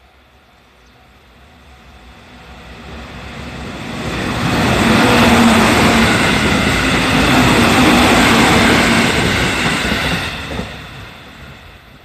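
JR 313 series electric multiple-unit train passing close by at speed. The noise builds over the first few seconds, stays loud for about five seconds with a steady hum under it, and fades away near the end.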